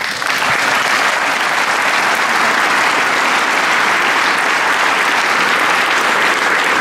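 Audience applause: many people clapping in a large hall, breaking out at once and holding steady.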